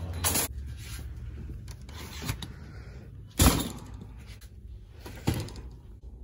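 Three separate knocks or thumps: a short one just after the start, the loudest about halfway through, and a weaker one near the end.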